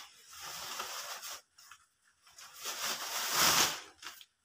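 Rustling of a fabric carry bag as a folded camping chair is pulled out of it: a soft stretch at first, then a louder one of about a second and a half, starting about two and a half seconds in.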